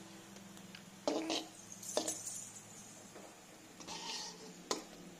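A metal slotted spoon clinking and scraping against a metal kadai while turning bread frying in a little oil: a few sharp clinks with short scrapes, over a steady low hum.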